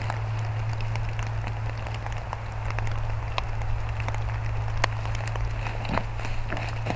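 Freezing rain falling on dry leaf litter, a steady patter with scattered sharp ticks of drops striking leaves, over a steady low hum.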